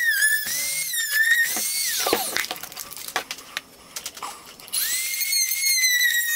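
Small high-speed rotary tool cutting through a plastic spray bottle, a high whine that sags in pitch as it bites into the plastic. It winds down about two seconds in, a few clicks and knocks of handling follow, and it spins back up near five seconds.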